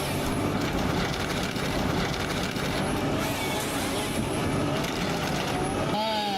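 A machine's engine running steadily under a dense mechanical noise, with a change in the sound near the end.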